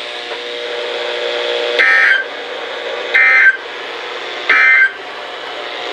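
NOAA Weather Radio sending the three short EAS end-of-message data bursts, about a second and a half apart, over steady radio hiss. The bursts signal the end of the tornado warning message.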